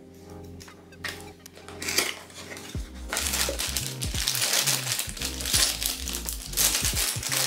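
A few paper rustles as the pages of an instruction manual are flipped, then from about three seconds in a clear plastic parts bag and bubble wrap crinkle continuously as they are handled and pulled from the box. The crinkling is the loudest sound, over background music with a steady bass line.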